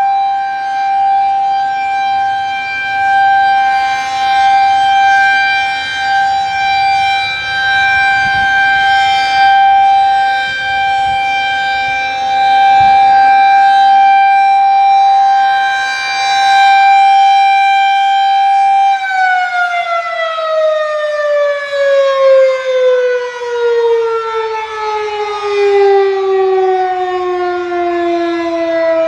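Federal Signal 2001-SRNB rotating electromechanical siren sounding a steady Alert tone, swelling and fading in loudness as the horn turns. About 19 seconds in it begins to wind down, its pitch falling steadily.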